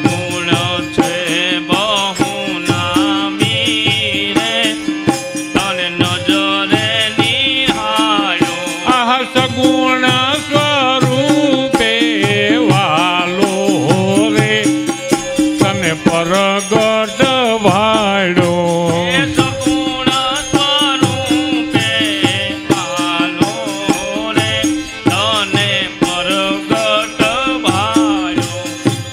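Devotional bhajan: a man singing long, wavering melodic lines over a steady harmonium accompaniment, with a constant beat of jingling hand percussion.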